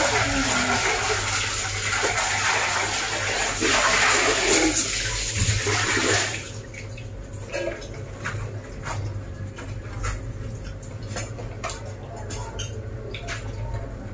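Water running in a steady rush that cuts off suddenly about six seconds in, followed by faint scattered clicks and taps.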